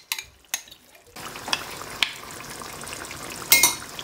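Spoon clicking and scraping against a glass bowl as spiced yogurt is tipped into the pan, then about a second in a steady sizzle of frying food starts while a wooden spatula stirs in a non-stick wok, with a louder scrape near the end.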